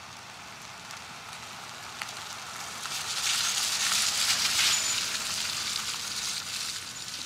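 An SUV driving past on a wet road: the hiss of its tyres on the wet pavement swells as it comes alongside, about four seconds in, then fades.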